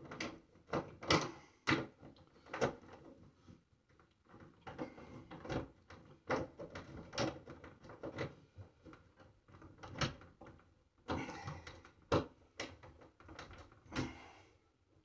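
Screws being driven by hand with a screwdriver into the mounting plate of a soft-close lid stay on a wooden box lid: irregular clicks and knocks of the screwdriver and metal hardware against the wood, with a couple of short scraping stretches.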